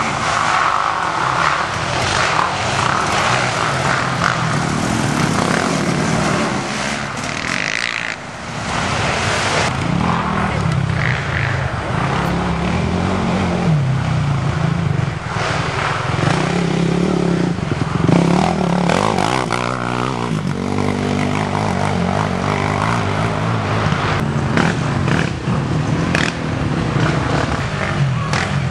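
Racing ATV (quad) engines running hard, their pitch rising and falling as the quads accelerate and slow.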